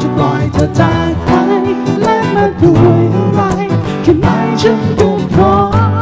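Male vocalist singing a Thai pop song live with a strummed acoustic guitar accompaniment.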